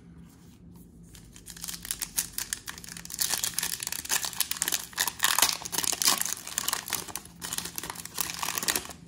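Foil trading-card pack being torn open and its wrapper crinkled as it is peeled back, a dense crackling that starts about a second and a half in.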